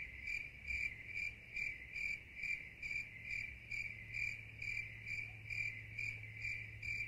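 Cricket chirping sound effect: a high chirp repeating evenly about twice a second over a low steady hum, laid over a silent pause in place of the room sound.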